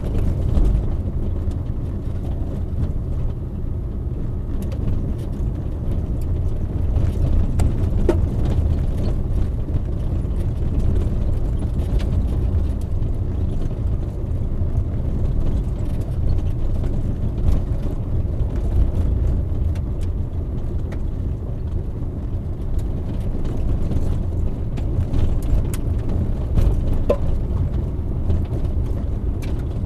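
Car driving at under 30 km/h on a gravel road, heard inside the cabin: a steady low rumble of the tyres on gravel and the running engine, with scattered small clicks.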